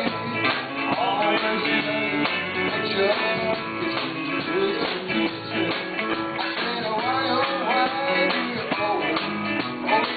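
Live band playing rock music, with guitars and a wavering melody line over a steady backing.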